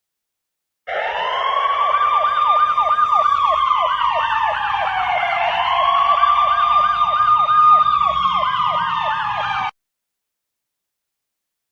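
Emergency vehicle siren: a slow wail rising and falling twice, with a faster yelping tone sweeping over it. It starts about a second in and cuts off abruptly near the end.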